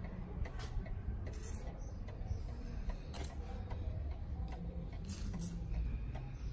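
Fusee wall clock's pendulum movement ticking, over a low rumble.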